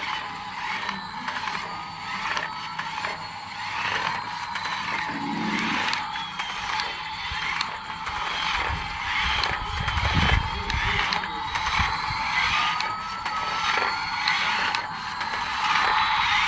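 Small electric motor and plastic gears of a toy RC vehicle whirring, with many rattling clicks and a faint whine that slowly rises and falls in pitch.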